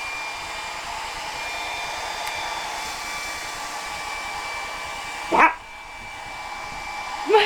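Hand-held hair dryer blowing steadily with a thin high whine, while a boxer dog that dislikes the dryer barks sharply once about five seconds in. Right after the bark the dryer's hiss drops and turns duller, and a second bark or yelp comes at the very end.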